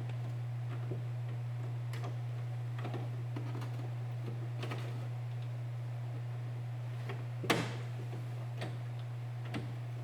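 Small clicks and taps of the interior door handle rod and its plastic clip being handled inside a car door, with one sharper snap about seven and a half seconds in, over a steady low hum.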